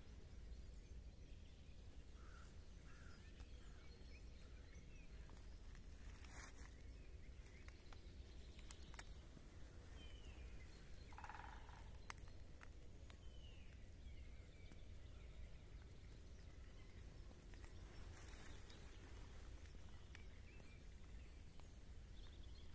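Near silence: faint outdoor ambience with a low steady rumble and a few faint, scattered bird calls, plus some brief clicks.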